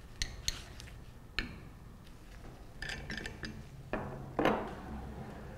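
Steel open-end wrenches clinking against the metal tubing fitting of a glycol pump as the fitting is worked loose. There are a few sharp clinks in the first second and a half and a quick cluster about three seconds in, then two louder metal knocks about four seconds in.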